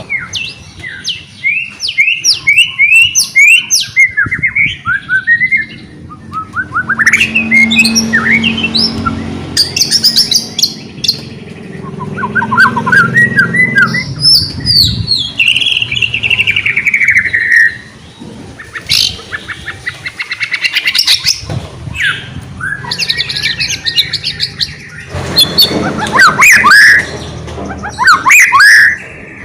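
White-rumped shama singing in full, lively song: a varied run of loud whistled phrases, quick repeated notes and sweeping trills, broken by short pauses.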